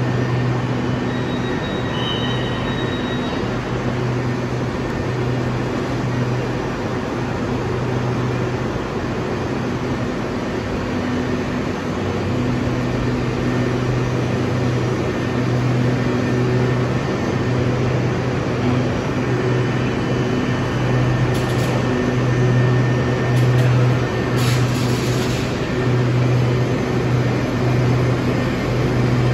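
Electric commuter train of Bangkok's SRT Red Line (a Hitachi AT100 multiple unit) moving along a station platform: a steady low hum from its motors and running gear over a continuous rush of wheel and track noise, growing a little louder in the second half.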